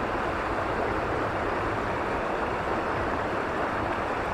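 Creek water running over riffles: a steady, even rush.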